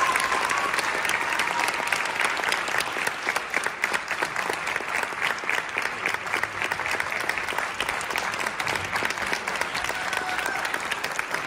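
Audience applauding steadily. A few voices call out over the clapping near the start and again near the end.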